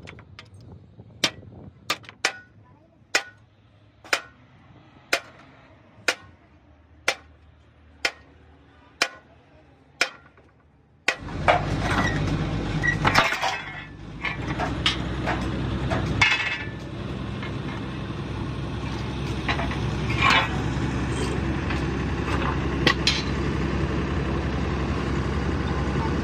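Hammer striking a steel punch about once a second, about eleven blows, driving the rivets out of a truck's steel chassis frame rail. About eleven seconds in this gives way suddenly to a loud, steady workshop noise with a low hum and scattered metal clinks.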